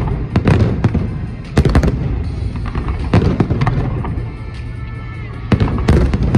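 Fireworks display: a string of aerial shells bursting in bangs and crackles, loudest about one and a half seconds in and again near the end.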